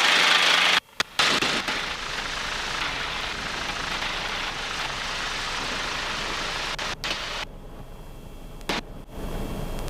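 Cabri G2 helicopter cockpit noise, the piston engine and rotors heard as a steady rush while the helicopter comes in to land. It cuts out briefly about a second in and drops quieter for a second or so near the end.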